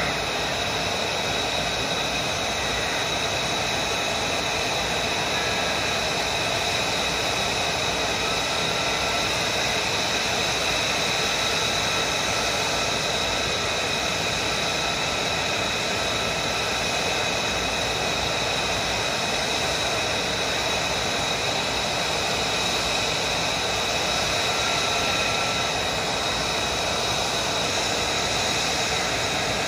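F-35 fighter jets' F135 turbofan engines idling on the ramp: a steady rushing noise with a steady high whine over it.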